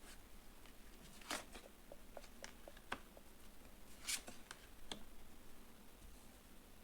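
Tarot cards being handled and laid out: a scatter of light clicks and rustles, the two louder ones about one and a half and four seconds in.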